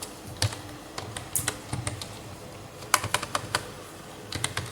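Typing on a computer keyboard: sharp keystroke clicks in short, irregular runs with pauses between them, the densest run about three seconds in.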